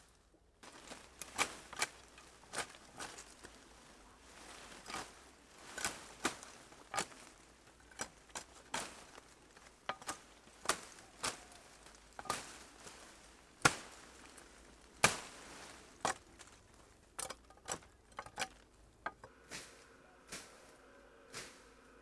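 Irregular sharp chopping strikes on green wood as saplings and branches are cut, with leaves rustling and stems cracking between the strokes.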